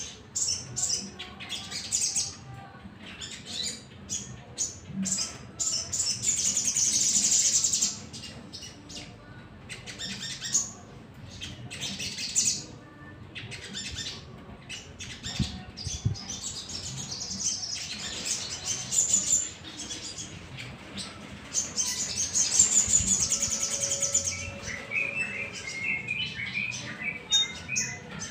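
Sunbirds (sogon) chirping and singing in quick, high trills, with loud runs of song about a third of the way in and again near the end, then a lower chattering run of notes.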